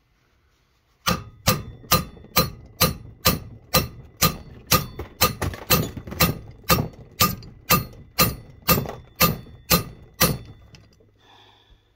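Sharp, ringing metal-on-metal blows, about twenty at roughly two a second, as a lug nut is driven down with a wrench to pull a new wheel stud into a Mopar 8 3/4 axle flange.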